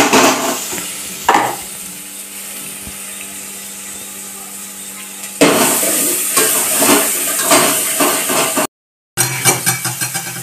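Chopped onion sizzling in hot oil in an aluminium pot, stirred with a metal spoon. From about halfway through, the spoon scrapes repeatedly against the pot and this is the loudest part.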